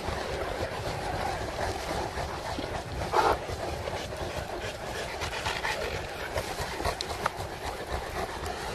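St. Bernard dogs panting over steady outdoor noise, with one brief louder sound about three seconds in.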